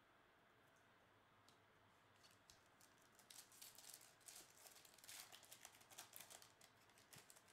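Faint crinkling and tearing of a foil trading-card pack wrapper being opened by hand, starting about three seconds in, after near silence.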